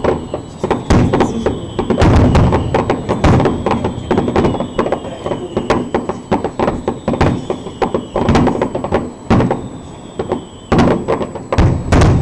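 Fireworks display: aerial shells bursting in quick succession, a dense string of sharp bangs, the loudest cluster near the end.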